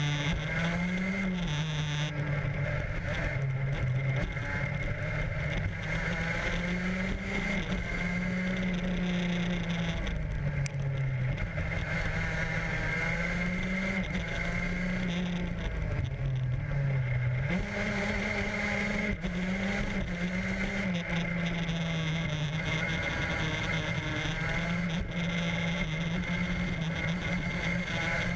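Racing go-kart engine heard up close from on board, running hard, its pitch dropping several times as the driver comes off the throttle for corners and climbing again as the kart accelerates.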